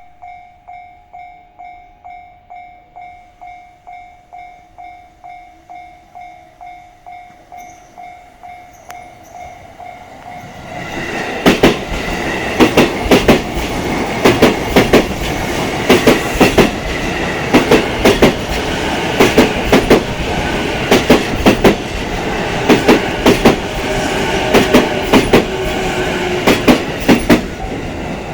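Japanese level-crossing warning bell ringing, about two strokes a second. About ten seconds in, an E233 series electric train passes close by while slowing, its wheels clicking over the rail joints in quick groups; these joint clicks are the loudest sound.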